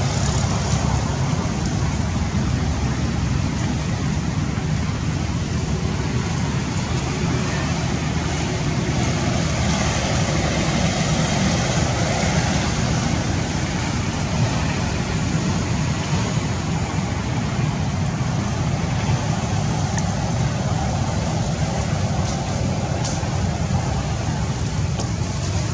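Steady outdoor background noise: a constant low rumble with a hiss over it and no distinct events.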